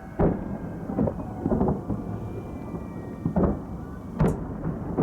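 Fireworks shells bursting in the sky: about five deep booms in quick succession, each with a rolling tail like distant thunder.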